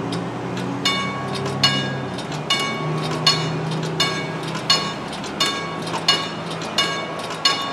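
Railroad grade-crossing bell starting up about a second in and ringing in even strokes, about one and a half a second, as the crossing signal activates for an approaching train. A steady low hum runs underneath.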